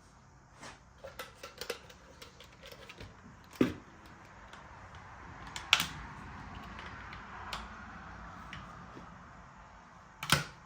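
Scattered light clicks and clanks of hand tools at work during an oil and filter service on the skid steer. Three sharper knocks stand out, a little past a third of the way in, just past halfway, and near the end.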